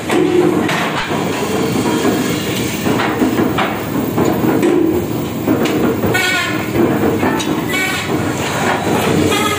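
Workshop machinery running: a steady mechanical rumble with passes of rhythmic metallic rattling.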